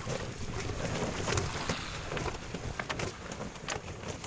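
Water splashing and lapping against a wooden outrigger dugout canoe under way, with many short scattered clicks and knocks from the boat.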